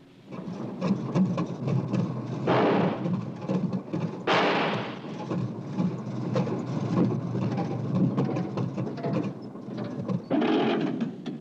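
1959 Chevrolet Impala's engine running rough and loud, crackling with irregular knocks and pops, with two louder rushing bursts about two and a half and four and a half seconds in. It is badly in need of a tune-up.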